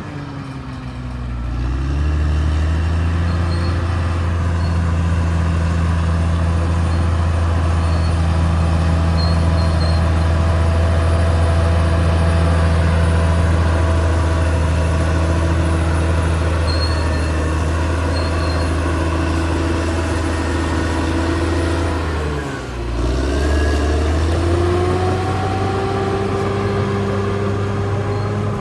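Caterpillar D6R XL bulldozer's diesel engine running steadily under load. Its revs sag and climb back twice, just after the start and again about three-quarters of the way through.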